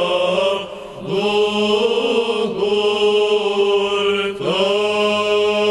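Male choir chanting Byzantine Orthodox chant in Romanian, slow and drawn out, with a melody line that moves over a steadily held low drone note (the ison). There is a short break between phrases about a second in.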